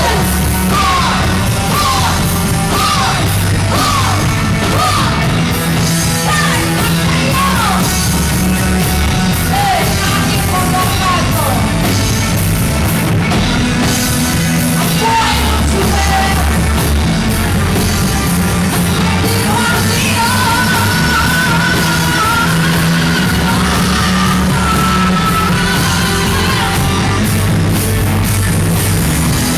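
Live rock band playing loudly, with bass and drums under a lead line that bends notes again and again in the first half and holds long notes later, with vocals.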